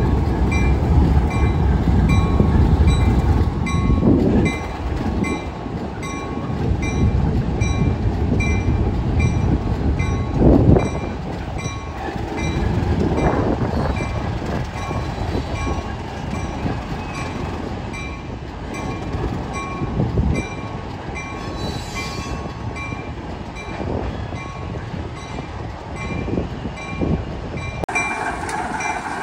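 ALCO RS-1 road switcher's turbocharged six-cylinder 539 diesel engine running as the locomotive moves a string of loaded hopper cars, with a deep rumble that is heaviest in the first few seconds and a brief thump about ten seconds in.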